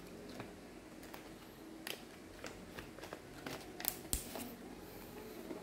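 Plastic watch bags crinkling and rustling with light scattered clicks as they are handled, with a few sharper clicks about two and four seconds in.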